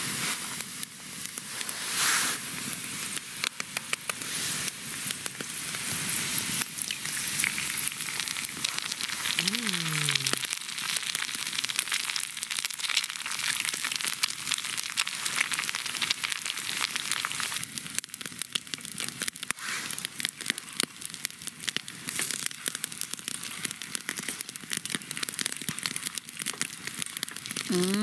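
Food sizzling and crackling in a frying pan, a steady dense spatter of tiny pops.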